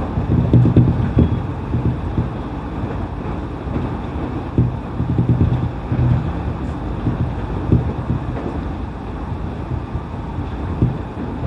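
Running noise of a JR E531 series electric train heard from on board: a steady low rumble of wheels on rail with a few louder surges.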